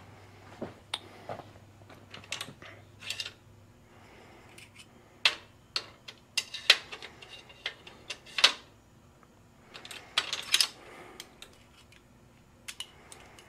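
Red-handled screwdrivers clicking and clattering against each other and their rack as they are picked through, in irregular sharp clicks.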